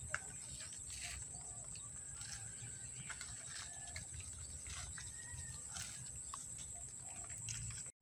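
Faint rural outdoor ambience: a steady high-pitched hiss and a low rumble, with scattered faint short bird calls.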